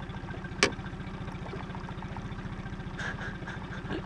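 Boat's outboard motor idling with a steady, evenly pulsing low chug. About two-thirds of a second in there is a single sharp click.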